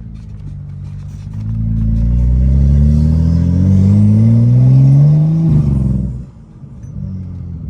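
BMW F10 535i's turbocharged N55 inline-six accelerating hard, its engine note climbing steadily in pitch for about four seconds, then falling away suddenly as the throttle is lifted.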